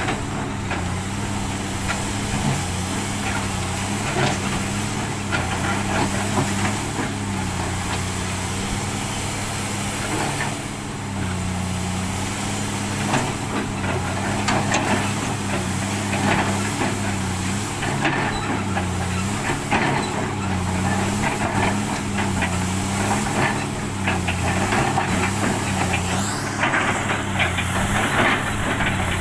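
Komatsu PC300 excavator's diesel engine running, its pitch rising and falling under changing hydraulic load as it digs and swings, with loose coal clattering as it is dug and dumped into a dump truck's steel bed. A rising whine near the end.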